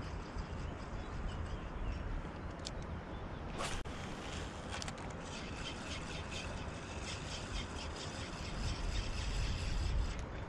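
Spinning reel cranked steadily on the retrieve: a faint, fast rattle of its gears under a low rumble of wind on the microphone. There is a single sharp click a little under four seconds in.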